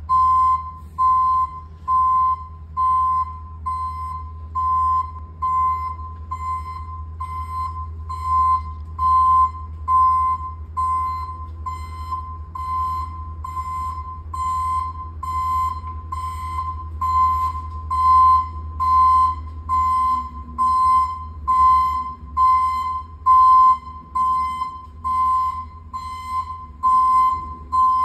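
Ambulance reversing alarm beeping, one short mid-pitched beep about once a second, sounding while the ambulance backs up, over a steady low rumble.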